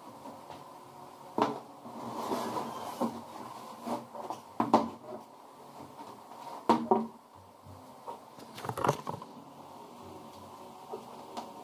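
Plywood and tools being handled on a workbench: a few separate knocks and clunks spread out, with rustling between them.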